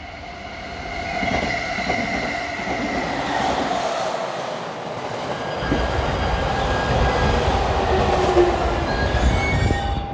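Electric commuter train running along station tracks: steady whining and squealing tones over the wheels, with a low rumble that grows louder about halfway through as the train passes close by.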